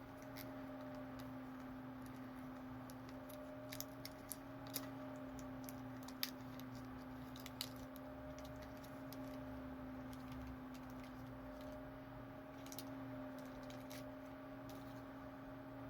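Scattered light clicks and taps, about half a dozen, the sharpest about six seconds in, over a steady low electrical hum.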